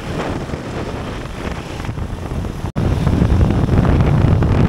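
Wind rushing over the microphone of a moving motorbike taxi, a loud low rumble with the bike's engine and road noise under it. Just under three seconds in the sound drops out for an instant and comes back with a heavier low rumble.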